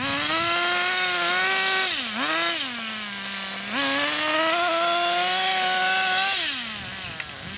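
Nitro RC car's small two-stroke glow engine revving hard in bursts and dropping back to idle between them. It is held high for about two seconds, blipped quickly near the two-second mark, idles briefly, then held high again for about two and a half seconds before falling back to idle near the end.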